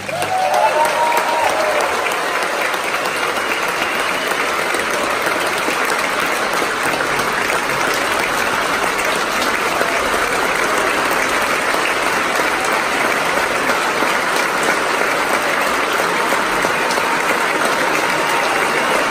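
Large concert-hall audience applauding steadily, with a short high cheer rising out of the clapping just after the start.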